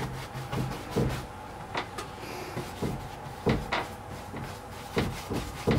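Paintbrush slapping and dragging paint across a panel door, with about half a dozen light, irregular knocks as the brush strikes the door.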